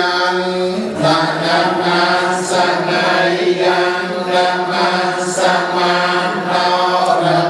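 Khmer Buddhist prayer chanting by a congregation, a man's voice leading through a microphone and loudspeaker. The chant is held on one steady pitch without pause.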